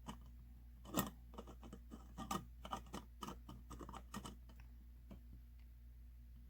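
Light clicks and taps of a recessed light housing and trim ring being handled and set down on a cap, with one sharper knock about a second in. The tapping stops after about four seconds, leaving a low steady hum.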